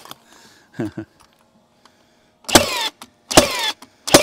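Nail gun firing three times about a second apart, each shot a sharp crack with a short whir after it. A few light knocks come before the first shot.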